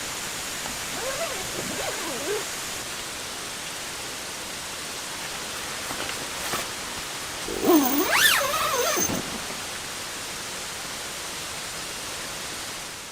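Steady hiss of rain, with two wavering, pitch-bending animal cries over it: a faint one about a second in and a louder one, rising and falling, about eight seconds in.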